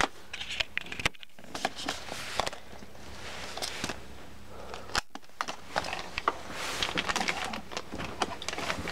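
Plastic blister pack with a cardboard backing card being handled and turned over: crinkling plastic with irregular clicks and taps, broken by two brief drops to silence.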